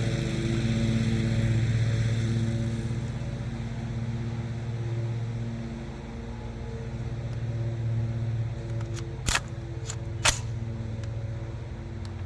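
An engine running steadily at an even pitch, with two short sharp clicks about a second apart near the end.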